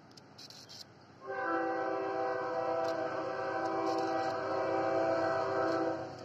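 Air horn of an HXN5 diesel locomotive hauling a freight train, sounded in one long steady blast that starts sharply about a second in and cuts off near the end: a warning as the train approaches.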